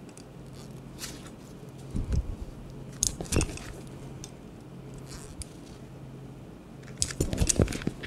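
Multigrip pliers working the spring hose clamps and rubber hoses on a washing machine's water inlet valve: scattered metallic clicks and knocks, with a quick cluster near the end.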